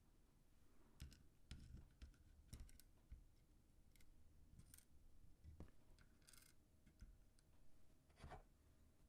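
Faint, scattered clicks and taps of computer parts being handled, with a brief scraping rustle about six seconds in.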